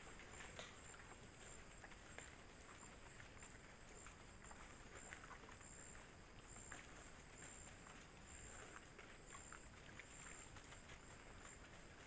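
A herd of peccaries foraging over dry leaf litter and mud: faint scattered rustles and clicks from their hooves and snouts, over a steady high-pitched drone that pulses.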